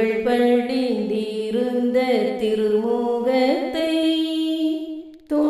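A Tamil Catholic Way of the Cross hymn sung slowly, with long held notes sliding between pitches and a brief break between phrases near the end.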